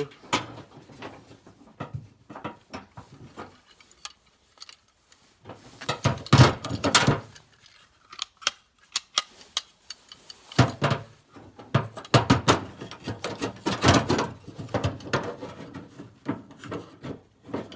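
Irregular clicks, taps and rattles of a tailgate latch rod being worked into its plastic retaining clip inside a pickup tailgate, coming in clusters with quieter gaps about four and nine seconds in.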